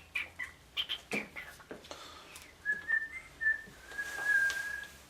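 A person whistling a few short notes that step up and down in pitch, ending on a longer held note, with a rustle under the last note. Before the whistling, in the first two seconds, there is a string of short clicks and rustles.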